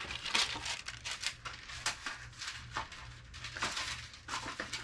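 Paper rustling and crinkling as a printed certificate and card are handled and put away, with irregular crisp crackles throughout.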